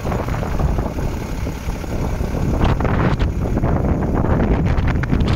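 DAF 45.150 truck's diesel engine idling, with wind buffeting the microphone.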